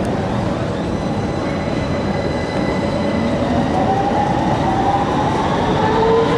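Copenhagen Metro driverless electric train pulling out of the station. Its running noise is steady, and a whine starts climbing in pitch about halfway through as the train picks up speed.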